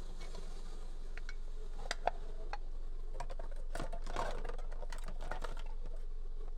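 Handling noises from work on a steering wheel: scattered light clicks and taps, with a short scrape or rustle about four seconds in, over a steady low hum.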